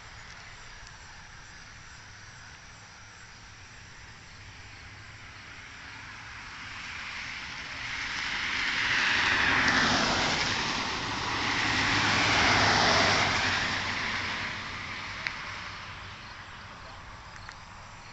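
A road vehicle passing by: its tyre and engine noise swells over several seconds, peaks twice, and fades away.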